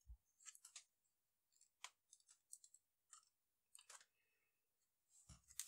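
Near silence with a dozen or so faint, scattered clicks and light taps from small hardware being handled.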